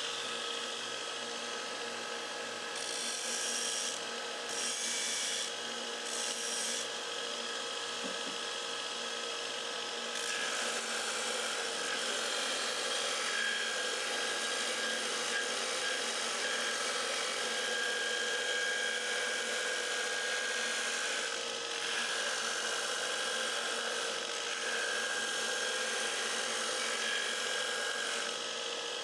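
Magna-Matic water-cooled belt grinder running with a steady whine while a commercial Grasshopper mower blade is ground against the belt to sharpen its edge. A few seconds in, a hissing rasp comes in three short strokes, then the grinding goes on more evenly.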